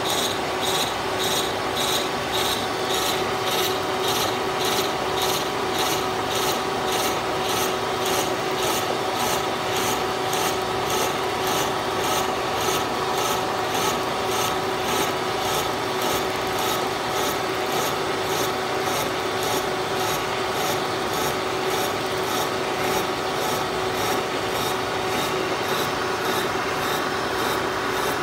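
Brown & Sharpe 3A horizontal milling machine taking a roughing cut with a 4-inch helical slab milling cutter at about 100 RPM, shaving long chips off a block of Tyvar 88 plastic. The cutter makes a steady, evenly pulsing rasp over a steady hum from the machine.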